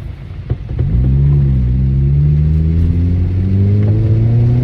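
2013 Honda Civic Si's 2.4-litre four-cylinder engine picking up about a second in and pulling with a slowly rising pitch as the car accelerates, after a couple of light clicks.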